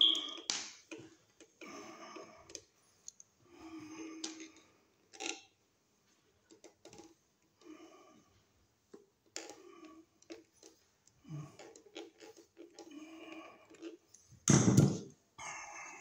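Pliers working the small metal mounting tabs on a new duplex wall receptacle to break them off: irregular small clicks, creaks and rustles of metal and plastic being handled, with one louder knock near the end.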